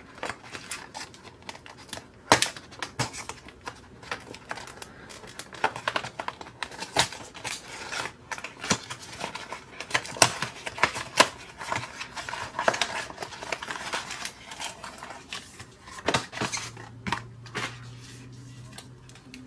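Cardboard trading-card starter deck box being opened and its contents handled: a rapid, irregular run of clicks, taps and crinkles of card and packaging. A low steady hum comes in near the end.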